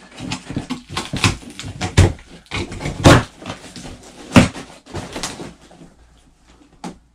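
Cardboard box being opened and its contents handled: an irregular run of scrapes, rustles and knocks, the loudest about one, two, three and four and a half seconds in, dying down near the end.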